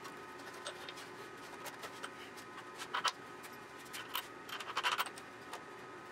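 Small metal clicks and clinks as a steel washer and nut are fitted by hand onto a bolt end. The clicks are scattered, with a cluster about three seconds in and another, busier one near five seconds.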